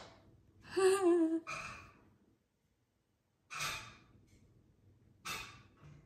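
A person sighing heavily several times, with a short wavering groan about a second in: exasperated sighs.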